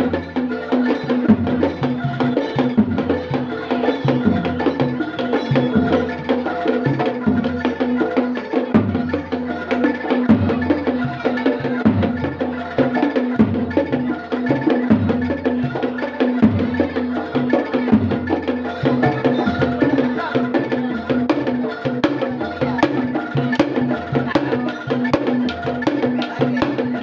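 East Javanese jaranan gamelan music accompanying a horse dance: drum strikes and clacking percussion in a steady rhythm over held metallic tones.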